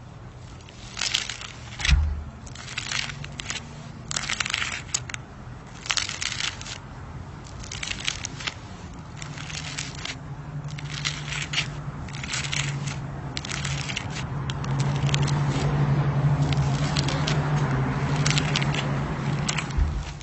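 Crunchy slime squeezed and pressed by hand, giving repeated bursts of crackling and popping. A steady low hum runs underneath and grows louder in the second half.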